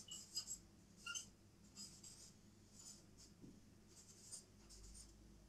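Faint scratching of a marker pen on a whiteboard, writing a line of words in short, irregular strokes.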